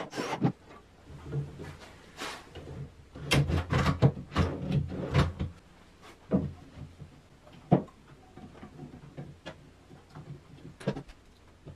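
Wooden drawer on metal ball-bearing drawer slides being fitted and worked in and out. A brief cordless-drill burst at the start is followed by a run of knocks and clacks as the drawer slides and bumps home.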